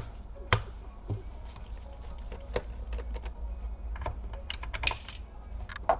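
Scattered sharp clicks and taps of a screwdriver and small screws being handled against a laptop's plastic casing during disassembly, with a low steady hum underneath.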